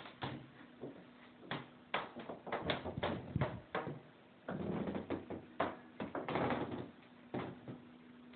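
A squeaky floor creaking and squeaking underfoot as it is stepped on: a string of irregular short squeaks, with a few longer drawn-out creaks about halfway through.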